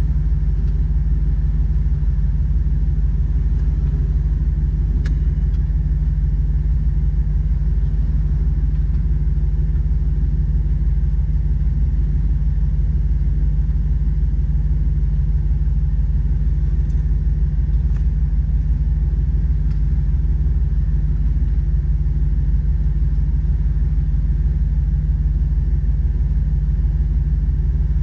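Jeep Wrangler LJ's 4.0-litre straight-six idling steadily, a low, even rumble.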